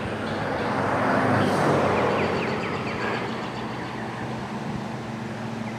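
A road vehicle passing, its tyre and engine noise swelling to a peak about two seconds in and then slowly fading.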